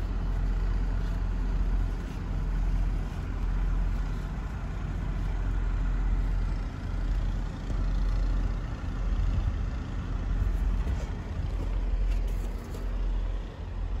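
Wind gusting across the phone's microphone in a snowstorm: a steady low rumble that swells and eases every second or two.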